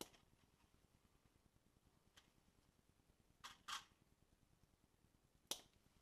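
Short, sharp clicks of a pliers-type hand tool worked on thin electrical wire. There is one click at the start, a faint one about two seconds in, a quick pair around three and a half seconds, and a loud one near the end.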